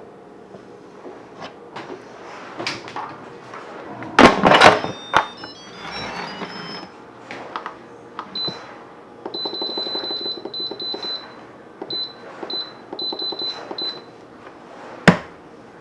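Instant Pot being closed and set to pressure cook: a loud clatter about four seconds in, then a run of short high beeps from the control panel for several seconds, and one sharp click near the end.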